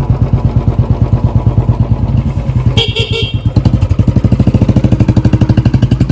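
Small motorbike engine idling close by with a steady rapid pulse. About three seconds in, a horn gives three quick beeps.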